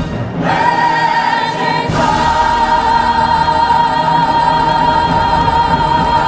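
Fireworks-show soundtrack music: a choir with orchestra holding one long chord, with a sharp hit at the start and another about two seconds in.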